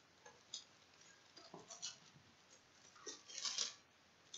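Faint handling of a cardboard card box: a few light taps, then about three seconds in a brief scraping rustle as the box is lifted and opened.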